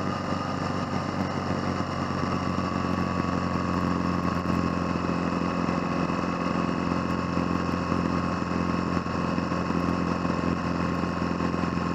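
Motorcycle engine running steadily at cruising speed, heard from on the bike, with wind and road noise over it; its pitch sinks slightly as the bike eases off.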